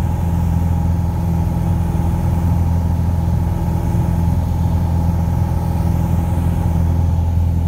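Piper Arrow single-engine light aircraft in flight: steady, unchanging drone of the piston engine and propeller, heard from inside the cabin.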